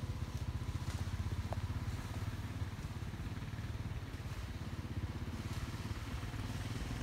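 Four-wheeler (ATV) engine running steadily, a low drone with a fast even pulse.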